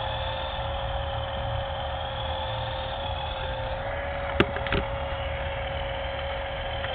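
Black Cat 3-channel toy RC helicopter's electric motor and rotors running at full throttle with a steady whine, yet the helicopter does not lift off: it is too weak or faulty to fly. Two short clicks about four and a half seconds in.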